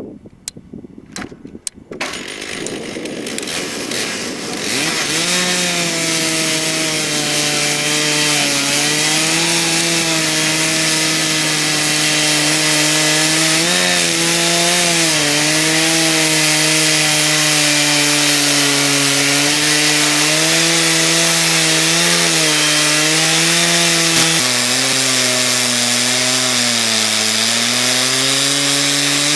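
Chainsaw running at high revs and cutting wood; the engine note sags briefly under load several times and drops lower about 24 s in.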